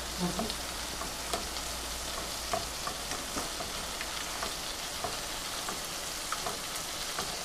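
Sausage gravy sizzling in a skillet on the stove as it is stirred with a whisk, a steady hiss with small scattered ticks of the whisk against the pan.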